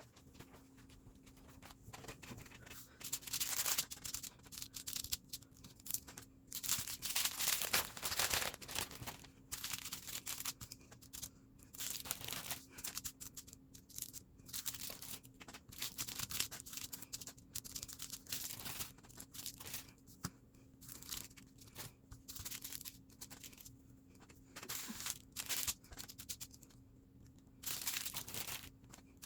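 Small plastic bags of diamond-painting resin drills crinkling and rustling as they are handled, in irregular short bursts.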